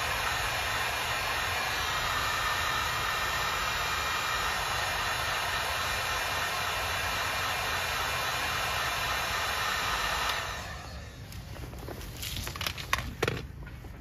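Electric heat gun blowing with a steady hiss, heating a solder-seal butt connector on a wire so that its solder melts and the sleeve shrinks. It stops about ten seconds in, followed by a few light clicks and knocks from handling the wires.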